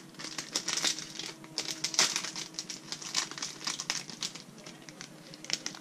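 Small clear plastic snack pouch crinkling and crackling in quick, irregular bursts as it is handled and opened by hand.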